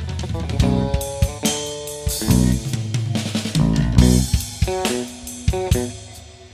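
Background music: an instrumental track with guitar, bass and a drum-kit beat.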